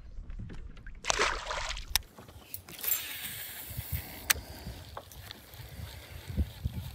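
Water sloshing and lapping around a small kayak, with a short rush of noise about a second in and a few sharp clicks after it.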